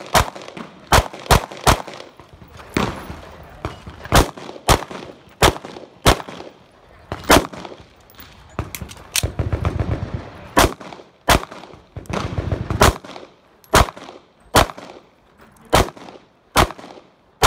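Glock 19 9mm pistol firing a string of about twenty single shots, spaced irregularly from under half a second to over a second apart, some in quick pairs.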